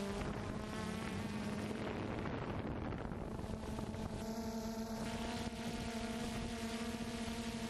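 Multirotor drone's motors and propellers buzzing, a steady hum with overtones over a rush of air noise; the pitch wavers briefly about a second in, then holds steady.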